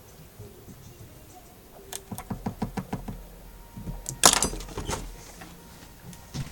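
A quick run of light taps and knocks, then one loud sharp clack about four seconds in, like hard objects handled and set down on a workbench.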